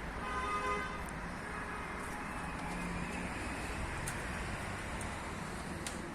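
Steady machine noise, with a brief pitched tone sounding for under a second near the start and a few faint clicks later.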